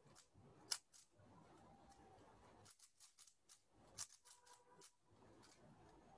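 Plastic layers of a 3x3 Rubik's cube clicking faintly as they are turned quickly during a speed solve. The clicks are scattered, with a sharper one under a second in and another about four seconds in, among a run of lighter ones.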